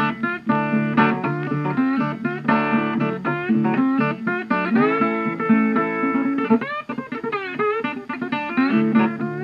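Background music: a plucked guitar melody, with notes bending in pitch about seven seconds in.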